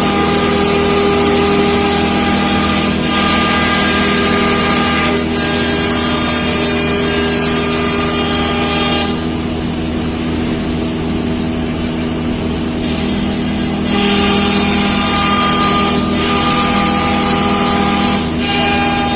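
CNC router running: a loud, steady machine whine of several held tones over a broad hiss. The high hiss falls away for about four seconds midway, then returns.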